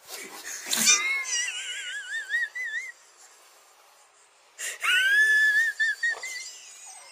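High-pitched, wheezing laughter from a person, in two bouts: a wavering squeal in the first few seconds, then a second rising, held squeal past the middle.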